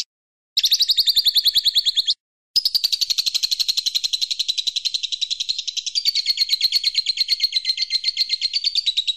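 A bird's rapid trill of high notes repeated more than ten times a second. A short trill, a brief gap, then a long unbroken trill.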